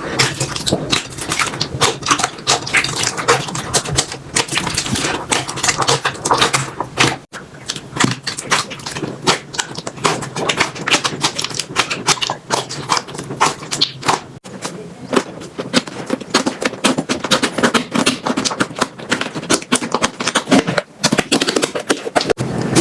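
Slime being squeezed and pressed by hand, with dense, rapid clicking and crackling.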